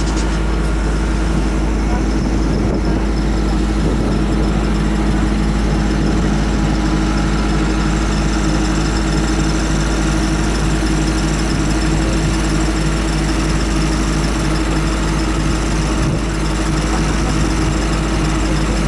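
Engine running steadily: a constant low drone with several steady humming tones, unchanging throughout.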